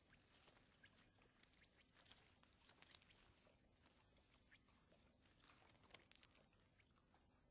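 Faint, crisp rustling and flicking of paper banknotes being counted by hand, in short irregular bursts over a low hiss.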